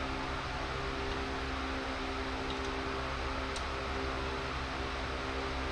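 Electric fans running steadily, with a low hum and a couple of faint light ticks partway through.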